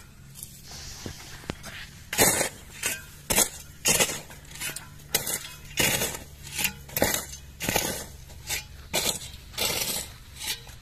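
Repeated short clinking, scraping strikes, like a hard tool hitting something hard, starting about two seconds in and going on irregularly at roughly one to two a second, over a faint steady low hum.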